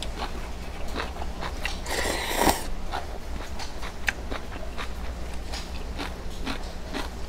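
Close-miked eating of ramen noodles: wet chewing with many small mouth clicks, and a louder slurp about two seconds in.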